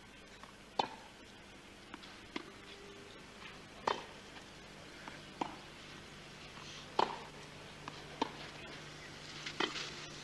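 Tennis ball struck back and forth by racquets in a clay-court baseline rally: a sharp, single pock about every second and a half, seven in all. A faint steady hum from the old broadcast runs underneath.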